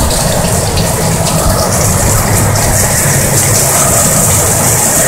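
Torrential rain driven by high winds of about 50 mph, heard as a loud, steady rush of water with a low, buffeting rumble from the wind.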